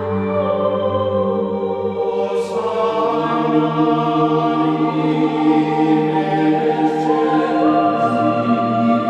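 Background music: slow, sustained held chords in a choir-like texture, changing to a new chord about two and a half seconds in and again near the end.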